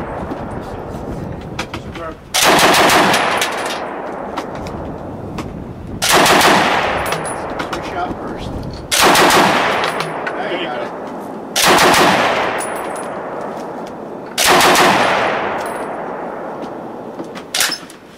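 Browning Automatic Rifle firing short bursts on its slow rate of fire: five bursts of a few rapid shots each, spaced a few seconds apart, every burst followed by a long fading echo.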